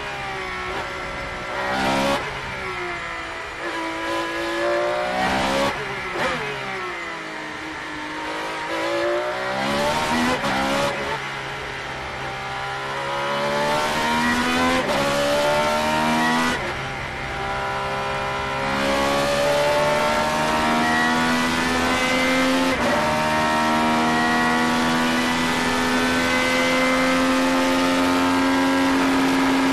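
Ferrari 333SP's 4.0-litre naturally aspirated V12, heard onboard. Through a slow section the engine pitch sags and rises, with several sharp throttle blips. The revs then climb in second gear, and the sequential gearbox shifts up three times into fifth, the engine ending on a high, steady note.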